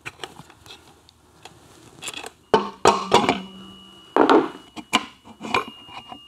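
Metal hand tools and fasteners clinking and knocking against the aluminium gear cover of an Aermacchi 350 engine and the workbench as the cover is undone and eased off. The sound is a string of sharp metallic knocks, bunched in the second half, some ringing briefly.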